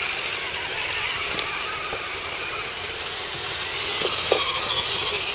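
Radio-controlled scale crawler trucks' electric motors and geared drivetrains whirring as they drive through a mud pool, under a steady high hiss, with one sharp click about four seconds in.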